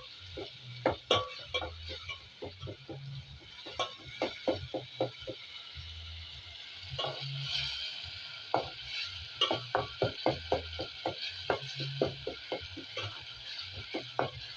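A spoon stirring cooked-down tomatoes in a cooking pot, tapping and scraping against the pot several times a second over a soft sizzle.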